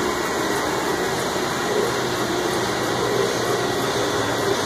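Large metal lathe running a roughing pass on a 2.5-inch steel shaft: a steady mechanical hum and whir with a few faint steady tones.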